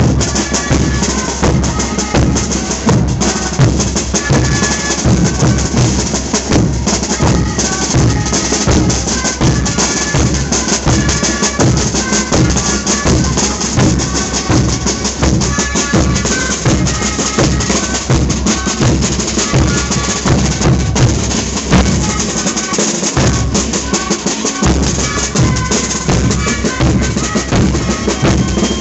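Tarqueada band music: tarkas, wooden Andean duct flutes, playing a reedy melody in unison over a steady beat on large bass drums, with snare drums rattling on top. The bass drum drops out briefly about three-quarters of the way through.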